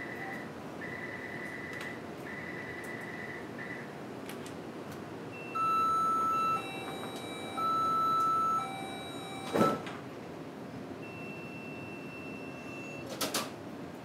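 Metro train standing at an underground platform with its equipment humming. First comes a run of repeated electronic beeps, then two long, loud warning tones. About ten seconds in there is a single heavy thud of the doors shutting, followed by a couple of sharp clicks near the end.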